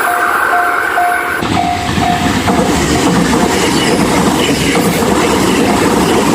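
Japanese railway level-crossing alarm dinging about twice a second. About a second and a half in, a train runs over the crossing; its rumble and wheel clatter drown out the alarm.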